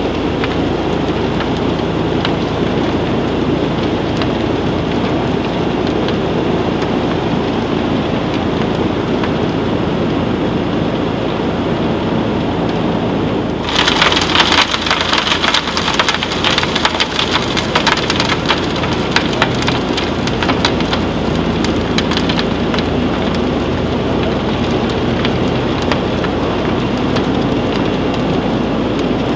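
Vibrafloor silo reclaimer running under a bin of crystal potash: a steady noisy rumble with a low hum. About halfway through, a crackling hiss of potash crystals sliding and pouring through the outlet starts suddenly, is strongest for several seconds, then eases back.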